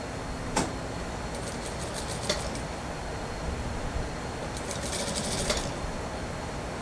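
Industrial lockstitch sewing machine stitching through suit-sleeve fabric in two short runs of rapid ticking, each about a second long: one early and one about five seconds in. A couple of single sharp clicks from the machine come in between.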